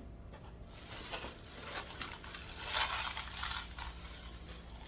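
Rustling and light clicking as boxes and bags of stainless steel fasteners are handled and shifted, with a louder rustle about three seconds in.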